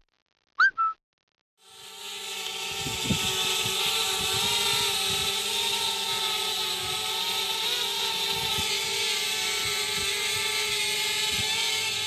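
A brief whistling chirp, then a quadcopter drone's propellers whining steadily: the whine fades in about one and a half seconds in and holds at an even pitch, as at take-off into a hover.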